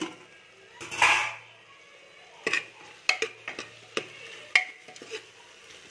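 A steel plate lid scraping as it is slid off a cooking pot about a second in, then a metal ladle stirring chicken and field beans in the pot, knocking sharply against the pot's side about ten times.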